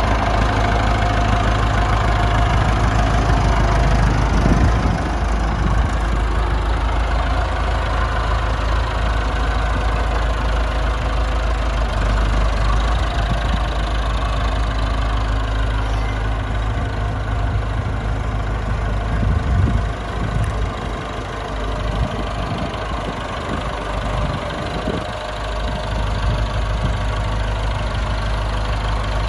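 Diesel engine of a 1999 Massey Ferguson 261 tractor running steadily as the tractor drives. It drops a little in level for a few seconds about twenty seconds in.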